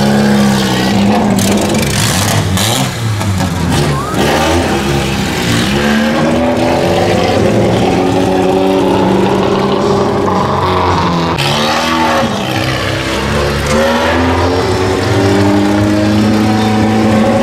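Opel Vectra stunt car's engine revving up and down over and over as the car is thrown around the arena, loud throughout.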